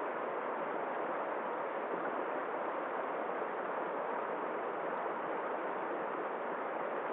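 Steady, unbroken rush of flowing water, even in level with no swells or breaks.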